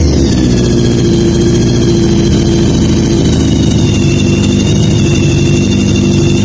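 Kawasaki GPZ1000RX inline-four motorcycle engine idling steadily, with a high whine that sinks a little in pitch over the first few seconds as the revs settle.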